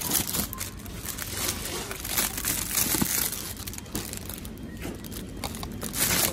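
Plastic wrapping on a tray of doughnuts crinkling and crackling as the tray is handled.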